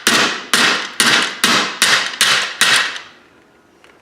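A hammer striking the dented metal housing of an EST SIGA-278 fire alarm pull station, about seven quick ringing blows at roughly two a second that stop about three seconds in. The blows are flattening out the dents.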